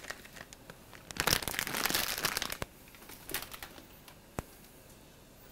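Plastic packaging of dry linguine crinkling in the hand as the strands are slid into a pot of water, in a dense burst lasting over a second, followed by a few light clicks.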